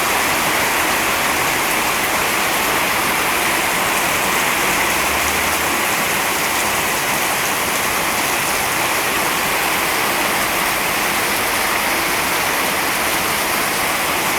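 Heavy rain pouring down steadily, mixed with runoff water splashing down like a small waterfall.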